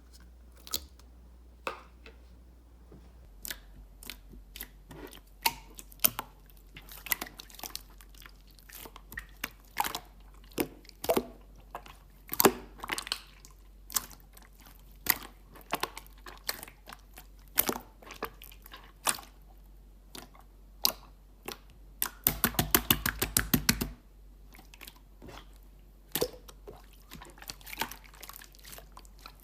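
Clear slime being handled, giving sharp wet clicks and pops at irregular intervals, with a quick run of clicks a little after two-thirds through.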